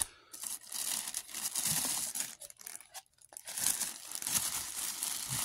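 Tissue paper rustling and crinkling as it is unfolded by hand from around a headset, in two spells with a brief pause about three seconds in.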